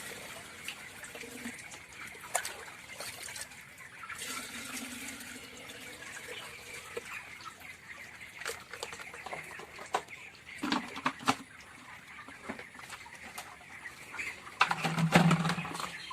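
Chickens in a poultry shed with water sloshing, broken by scattered sharp knocks and clicks; a louder run of knocks comes about fifteen seconds in.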